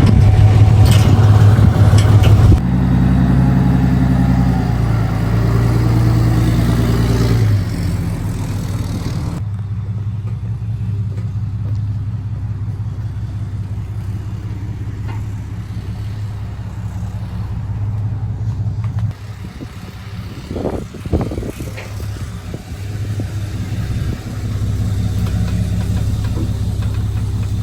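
Vehicle engine running steadily with a low drone that shifts in pitch and loudness a few times, with a couple of brief knocks a little past the middle.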